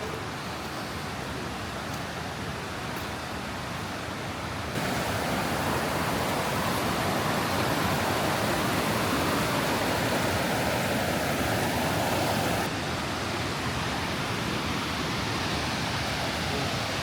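Mae Ya Waterfall's falling water rushing as a steady roar. It gets suddenly louder about five seconds in and drops back a little near the thirteen-second mark.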